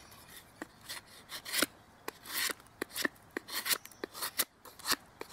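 Knife blade shaving a wooden fireboard smooth, a quick, irregular run of short scraping strokes, several a second.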